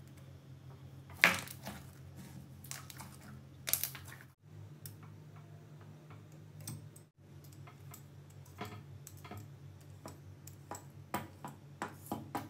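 Thick slime being kneaded, pressed and cut by hand, giving sharp sticky clicks and pops, with a low steady hum underneath. The loudest pop comes about a second in, and the sound drops out briefly twice at cuts.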